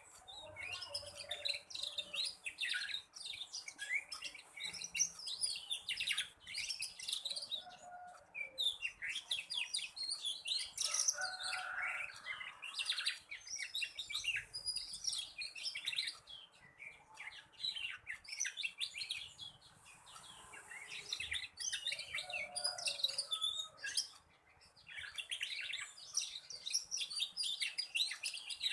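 Young black-red canary warbling in a fast run of chirps and trills, the twittering of a juvenile still learning its song. It sings almost without a break, with short lulls about eight and twenty-four seconds in.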